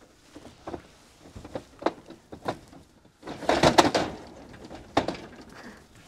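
Knocks and clattering from a livestock trailer as the cattle inside move out: scattered single knocks, then a louder burst of clattering a little past halfway, and one more sharp knock near the end.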